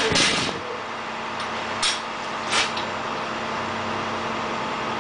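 Flatbed tow truck's engine idling steadily, with a loud knock right at the start and two sharp knocks about two and two and a half seconds in.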